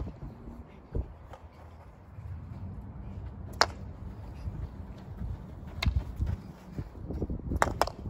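Field hockey sticks knocking against the ball and against each other: a handful of sharp, irregular clacks, the loudest about three and a half seconds in, with two close together near the end.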